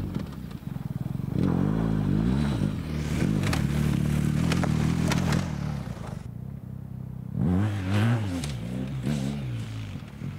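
BMW R 1250 GS's boxer twin engine revving up and down under hard throttle off-road. It eases off for a moment past the middle, then takes two more quick bursts of throttle, with scrapes and clatter from the tyres on loose dirt and stones.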